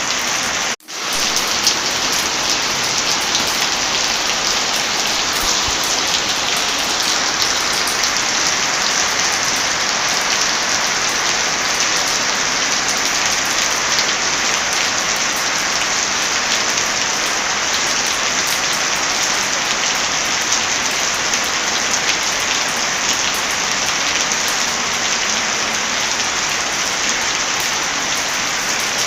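Heavy rain falling steadily on a surface, an even rushing patter. The sound cuts out for an instant just under a second in, then resumes.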